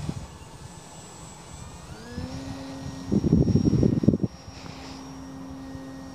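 Brushless electric motor and propeller of a Dynam Tiger Moth RC model biplane running in flight overhead, its tone rising about two seconds in as the motor speeds up, then holding steady. A loud low rumble lasts about a second in the middle.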